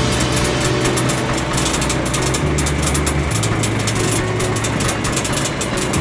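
Combine harvester working in the field: a loud, steady mechanical din of its engine and threshing and straw-spreading machinery, with a low hum that steps in pitch a couple of times midway.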